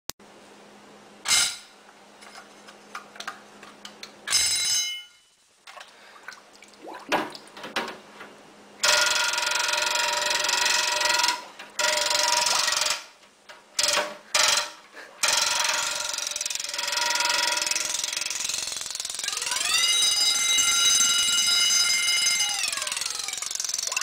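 Wind-up mechanical alarm bell ringing underwater. First a few single strikes with short rings, then from about nine seconds in a continuous ringing that breaks off briefly twice. Near the end its pitch sweeps up and then back down.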